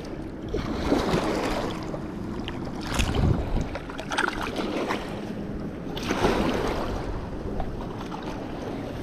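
Small waves washing against a rocky shoreline, rising in surges every couple of seconds, with some wind on the microphone.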